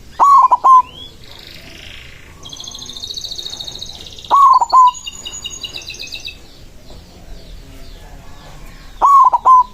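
A white zebra dove (perkutut) calling with its loud, clipped cooing song: three short phrases about four and a half seconds apart. Quieter high trills and chirps from other small birds come between the first two phrases.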